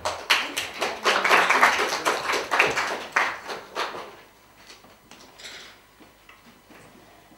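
Two people getting up from wooden chairs and walking away: a quick run of knocks, scrapes, rustles and footsteps that dies away after about four seconds.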